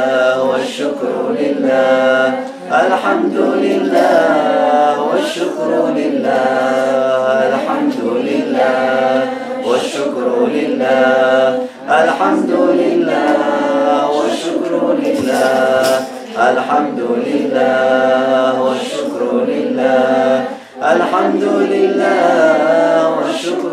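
A small mixed group of men's and women's voices chanting Islamic dhikr together without instruments, in long repeated melodic phrases with brief pauses between them.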